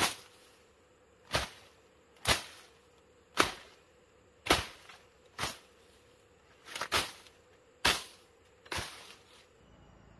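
A long blade slashing through leafy brush and thin stems: about ten sharp cuts, roughly one a second, stopping just before the end.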